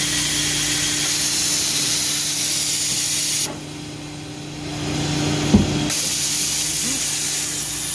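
CNC drilling machine running, with a steady hiss of coolant mist spraying at the drill over a steady motor hum. The hiss cuts off about three and a half seconds in and builds back about two seconds later, with a single sharp knock in between.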